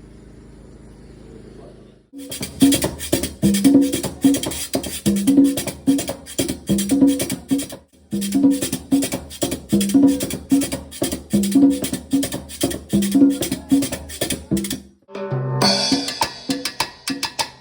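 Live band sound check: drum kit and percussion play a steady groove with a repeating bass line, starting about two seconds in. The band stops briefly about eight seconds in and again near the end, then comes back with a brighter, busier pattern.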